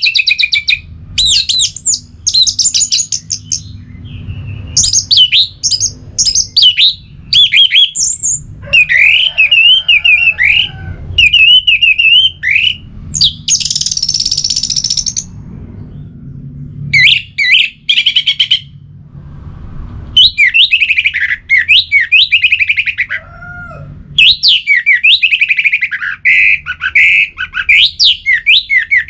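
Orange-headed thrush singing: a long run of fast, varied whistled and chattering phrases separated by short pauses, with a harsh raspy stretch about halfway through, over a faint low hum.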